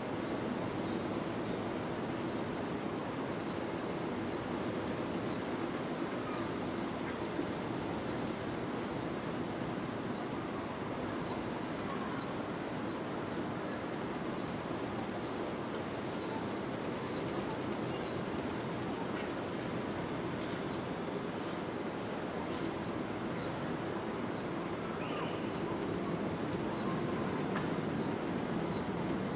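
A bird repeating a short, high chirp that falls in pitch, about once a second, over a steady rushing noise of wind.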